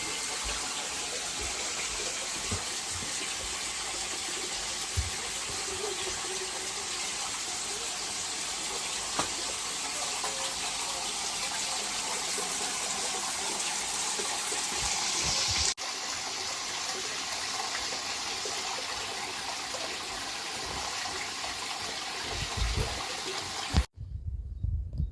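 Running water: a steady rushing hiss, cut off by an edit about 16 s in and resuming slightly quieter, then giving way near the end to a few low thumps.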